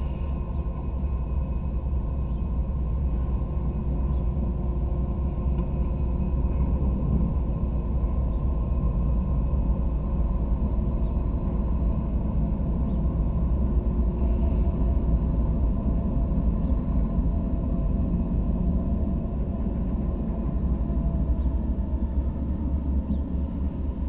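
Several Norfolk Southern diesel locomotives passing at track side, their engines giving a deep, steady rumble that eases slightly as the last unit goes by at the very end.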